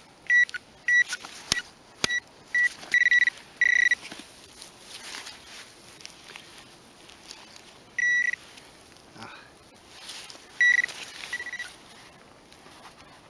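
Garrett Pro-Pointer pinpointer beeping at one high pitch, the short beeps coming faster and longer until they almost run together, as it closes in on a buried metal target in the soil. After a pause it beeps three more times, spread out.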